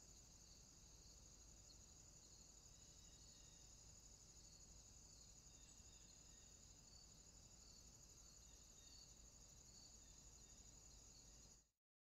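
Faint, steady chorus of insects: a continuous high-pitched pulsing buzz that cuts off suddenly near the end.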